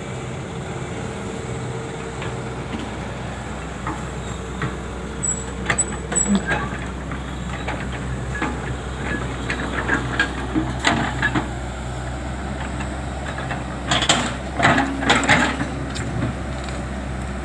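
Heavy diesel engine running steadily at idle, with scattered knocks and clanks, a cluster of them near the end.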